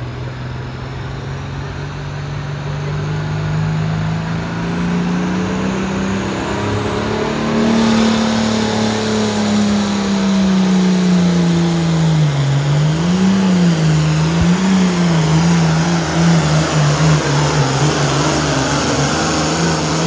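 Pro stock pulling tractor's turbocharged diesel engine under full throttle during a pull. Its pitch climbs for the first several seconds, then falls and wavers a little past the middle before holding steady near the end, and it grows louder as the pull goes on.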